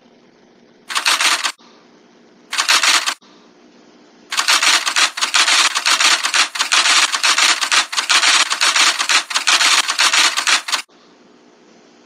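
Typewriter typing sound effect as on-screen text is typed out: two short bursts of keystrokes, then a longer run of rapid keystrokes lasting about six seconds, over a faint steady hum.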